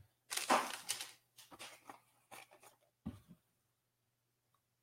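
Toy blind-box packaging being handled: a scratchy rustle about half a second in, then several shorter, softer rustles and taps.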